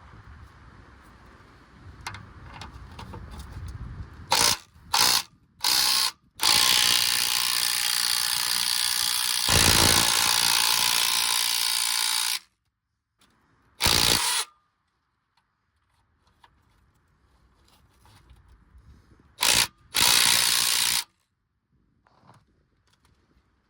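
A power tool run in short bursts, then held for about six seconds, then a few more short bursts, undoing the fasteners of the exhaust pipe.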